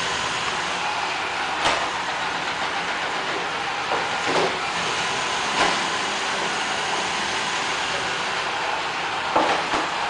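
Roomba robot vacuum running on a hardwood floor: the steady whir of its vacuum motor and brushes, with several short knocks as it bumps into the wall and baseboard.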